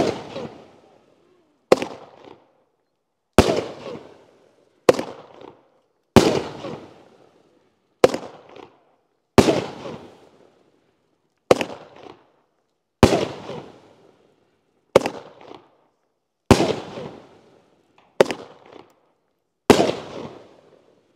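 Class B 350-gram seven-shot firework cake firing: about thirteen sharp bangs, one every one and a half to two seconds, each fading away over about a second.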